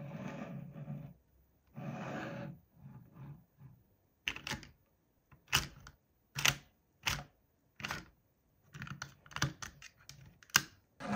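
Two short noisy bursts, then about ten sharp clicks and knocks, some close together, in the second half.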